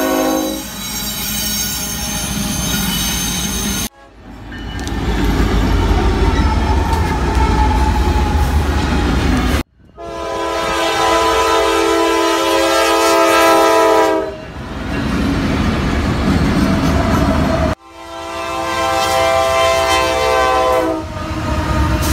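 Diesel freight locomotives passing close by in several short clips joined by abrupt cuts. A multi-note air horn chord ends about half a second in, sounds again for about four seconds around ten seconds in, and for about three seconds near eighteen seconds in. Between the horn blasts comes the deep rumble of the engines and rolling wheels going by.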